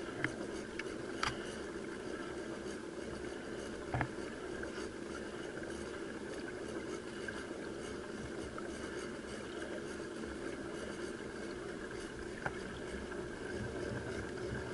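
Human-powered pedal boat under way: steady whirring of its bicycle-chain and sprocket propeller drive as it is pedalled, with four sharp clicks or knocks.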